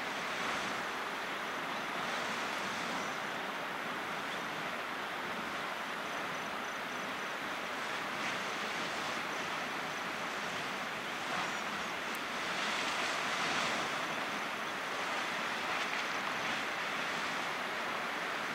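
Flood Geyser erupting: boiling water bursting and splashing from its vent, a steady rushing and splashing that swells louder several times, most strongly about two-thirds of the way through.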